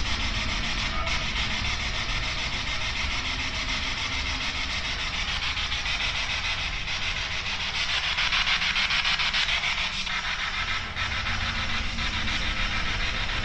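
Spirit box (ghost box) radio sweeping rapidly through stations: a steady hiss of radio static, finely chopped by the scan.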